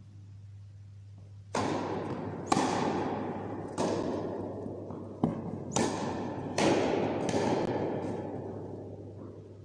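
Tennis rally on an indoor carpet court: about seven sharp ball strikes and bounces roughly a second apart, each ringing on in the hall's echo, then fading as the point ends.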